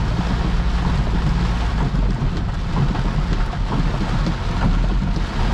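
Heavy rain pelting a moving car's roof and windscreen, heard from inside the cabin, over a steady low rumble of tyres on the wet road and the engine.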